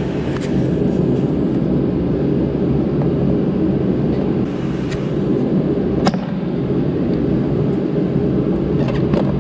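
A steady low background rumble, with a few sharp plastic clicks as needle-nose pliers pinch the clip that holds the fuel pump module's top hat to its housing. The loudest click comes about six seconds in, and two more come close together near the end.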